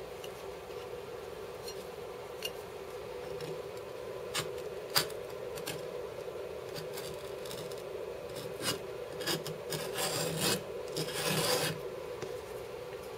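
Putty knife scraping wet, softened glue-stick residue off a 3D printer's build plate in short, irregular strokes that come thickest near the end, with one sharp click about five seconds in. A steady low hum runs underneath.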